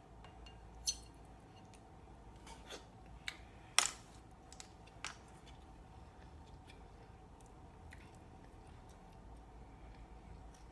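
Eating a shrimp and mussel seafood boil: a handful of sharp clicks and taps, the loudest just before four seconds in, over a low quiet background.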